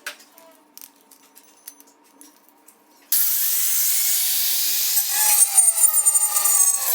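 A few light clicks and taps, then about three seconds in a loud, harsh grinding noise starts abruptly: a power tool working on tile. Near the end it turns rougher and scratchier.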